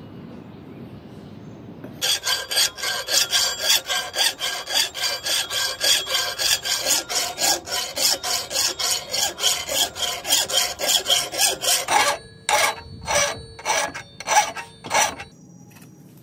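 Hand file scraping along the steel tines of a forged trident, starting about two seconds in. It goes in quick, even strokes of about four a second, then a few slower, separate strokes before it stops.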